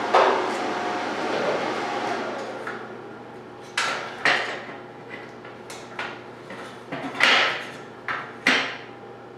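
A steady rushing noise fades out over the first few seconds. Then come a series of sharp metal-on-metal knocks, like a hammer striking steel, about eight of them at uneven intervals, each ringing briefly.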